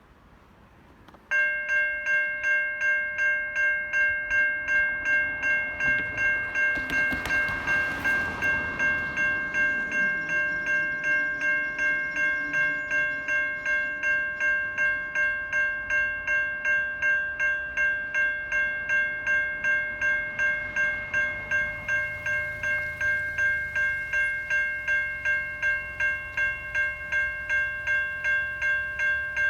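Electronic level-crossing bells, the older-style Safetran Type 3, start ringing about a second in with a steady, rapidly repeating ding, signalling that the crossing has activated for an approaching train. A rushing noise swells and fades about six to ten seconds in, and a low rumble builds in the last several seconds.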